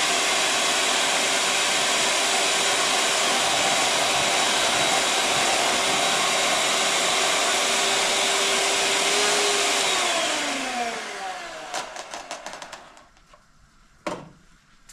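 Electric hand mixer beating eggs in a cup, its motor running at a steady whine, then switched off about ten seconds in so the whine falls in pitch as it spins down. A few light ticks follow, then a single knock as the mixer is set down on the counter.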